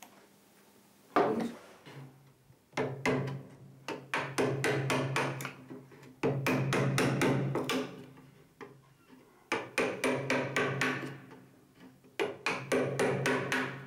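Small hammer tapping tiny nails into the wooden frames of a model boat hull, in quick runs of light taps with short pauses between them.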